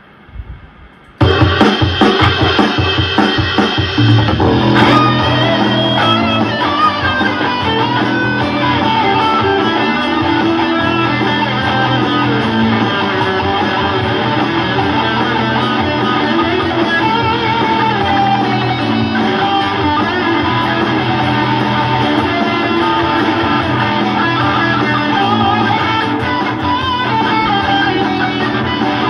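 Electric guitar riff played over a rock backing track with drums and bass, both coming out of a guitar amplifier's speaker cabinet used as the recording monitor. The music starts abruptly about a second in.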